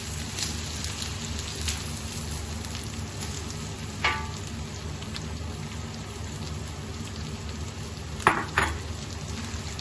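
Diced lamb and chopped onion frying in oil on an iron plate, sizzling steadily. A sharp clink about four seconds in and two more close together near the end.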